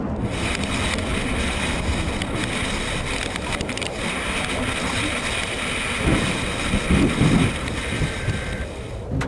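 Loud rushing wind and vehicle noise, with a few heavier buffets about six and seven seconds in.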